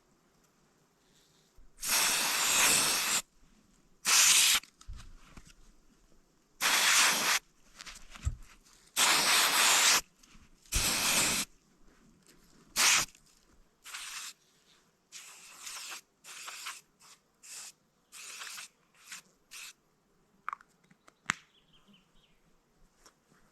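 Irregular bursts of swishing, rustling noise, each about a second long, loudest in the first half and shorter and fainter later, with a couple of sharp clicks near the end.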